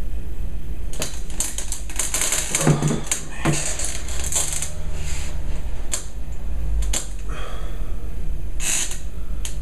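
Clicks, taps and rustling from things being handled on a desk, scattered across several seconds over a steady low hum.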